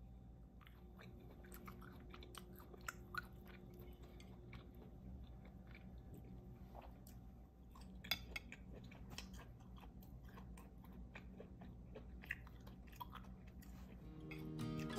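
A person chewing food, faint, with many small irregular clicks and crunches. Music starts to fade in near the end.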